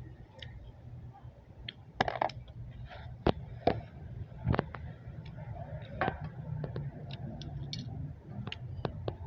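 Eating from a takeout container: scattered sharp clicks and taps of utensil and packaging, over a steady low hum.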